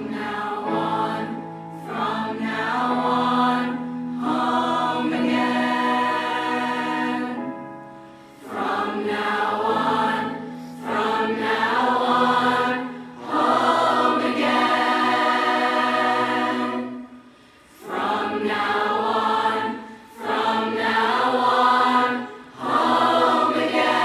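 Large mixed youth choir singing slow held chords over a steady low accompaniment, in phrases separated by brief pauses for breath.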